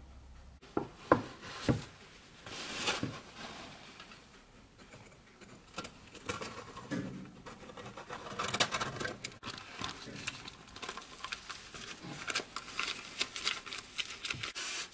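Baking parchment rustling and crinkling as a baked sheet is handled and rolled up in it in a metal baking tin, with a few sharp knocks about a second in.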